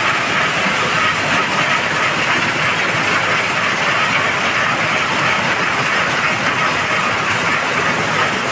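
Stone crusher plant running: a loud, steady, continuous noise of machinery and crushed stone riding on conveyor belts over their rollers.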